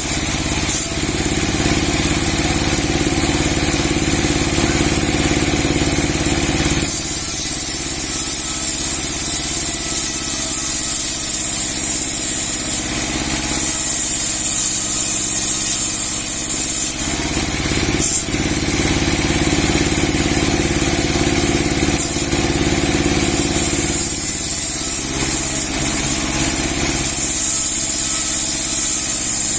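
Large 30 hp sawmill with a 60 cm steel blade running steadily and loud, alternating between heavier spells and lighter ones every several seconds.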